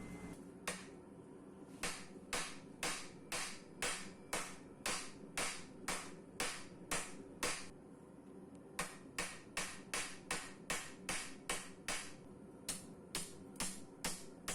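Hand hammer striking a hot steel knife blade on an anvil, about two blows a second, with a short pause around halfway, each blow ringing briefly: forging the blade into a chef knife.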